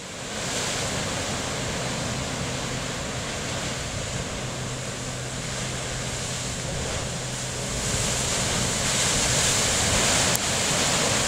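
Sea surf surging and churning through a narrow chasm in black lava rock, a steady rushing of broken water that grows louder about eight seconds in.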